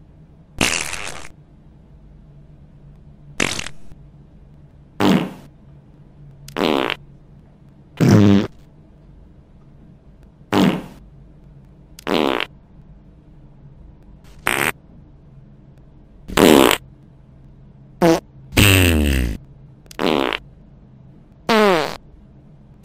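A string of about a dozen short fart sounds, one every second or two, several of them sliding in pitch.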